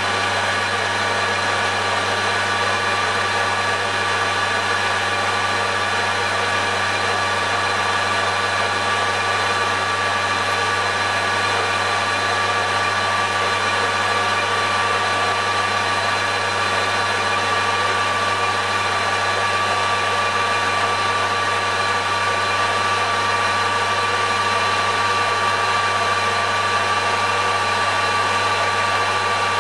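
Metal lathe running steadily under a turning cut on a stub axle shaft, a constant machine hum with several unchanging tones over an even noise.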